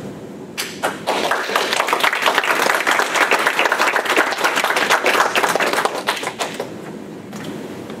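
Audience applauding, a dense clatter of many hands clapping that starts about half a second in and dies away near the end.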